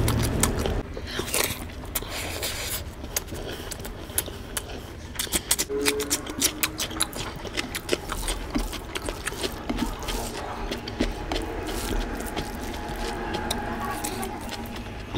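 A hand squishing and mixing rice with curry gravy on a plate, making a run of small wet clicks and squelches. Near the end a mouthful goes in and chewing starts.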